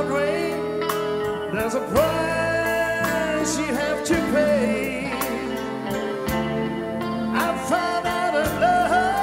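Live band playing a slow blues ballad instrumental: a lead electric guitar solo of long, bending notes over the band's backing, with regular drum hits.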